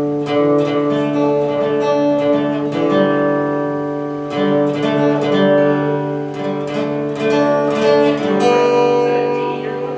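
Acoustic guitar strumming chords, with sustained notes ringing between the strokes.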